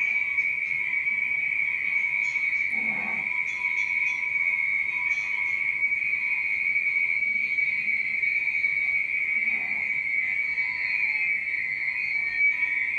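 A steady, high-pitched whistling tone, held unbroken at an even level.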